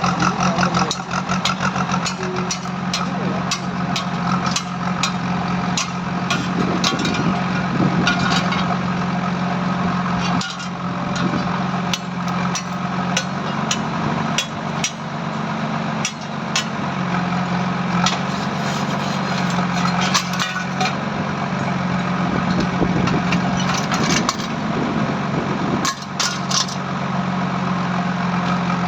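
An engine running steadily throughout, with many sharp metallic clicks and knocks scattered over it.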